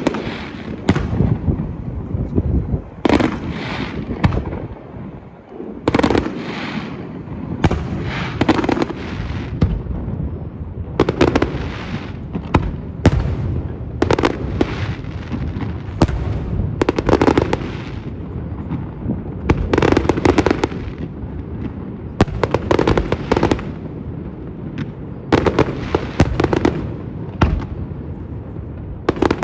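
Aerial fireworks shells bursting one after another, a sharp bang every second or two, over a continuous deep rumble as the booms run together.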